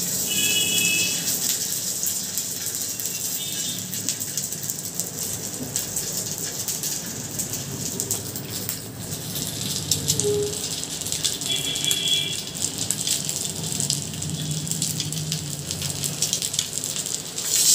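Thavalai vadai frying on a hot dosa griddle, a steady sizzle with dense crackling as the patties crisp.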